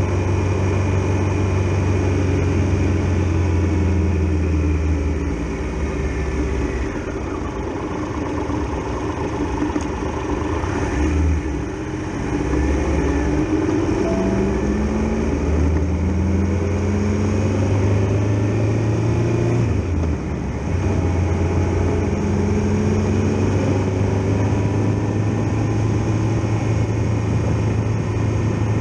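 Triumph Tiger Explorer XRx motorcycle's three-cylinder engine running under way, with wind rush. The engine note drops and picks up again a few times as the bike slows and gathers speed.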